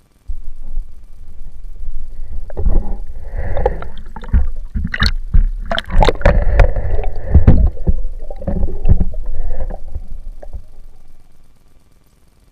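Muffled water sloshing and gurgling around an underwater microphone, with a low rumble and a run of sharp knocks. It starts suddenly and dies away about a second before the end.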